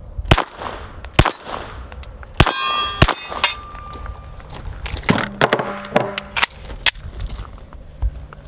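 Glock 44 .22LR pistol fired in single shots at uneven spacing, about seven sharp cracks, several followed by the ringing clang of steel targets being hit.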